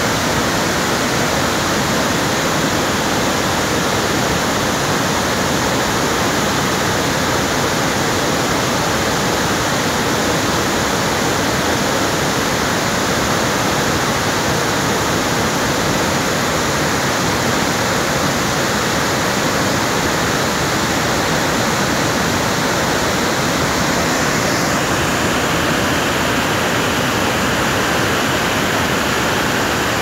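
Large waterfall in heavy flow: a steady roar of falling water and spray, loud and unbroken.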